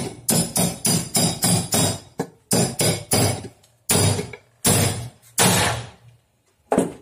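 A hammer striking steel, about a dozen sharp, ringing taps in quick irregular runs, driving a crankshaft bearing into the newly repaired bearing housing of a Yamaha F1ZR crankcase.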